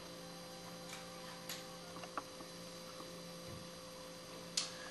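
Steady mains hum with a few faint, sharp clicks of small glass sample bottles being handled and set down on a table; the clearest click comes near the end.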